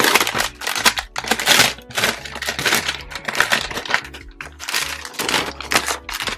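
Clear plastic sleeve crinkling and rustling in irregular bursts as it is pulled off a printed card sheet.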